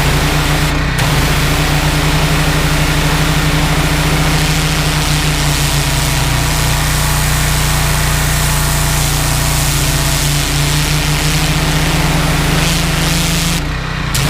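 Honda GX390 single-cylinder petrol engine running steadily at full revs, driving a belt-driven pressure-washer pump, under a loud spray hiss. The spray hiss breaks off briefly about a second in and again near the end.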